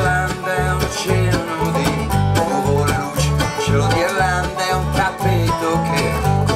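Live bluegrass band playing: banjo, mandolin and acoustic guitar picking over a bass that plays steady notes on the beat.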